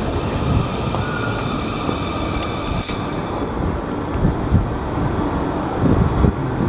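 South Western Railway Class 450 Desiro electric multiple unit running through the station: a steady rumble with a faint whine above it.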